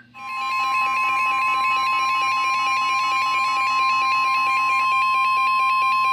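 NOAA Weather Radio warning alarm: a steady tone of about 1 kHz with a fast-stepping electronic alarm pattern of several higher tones layered over it, coming on sharply at the start. It is the alert tone that announces a new severe thunderstorm warning.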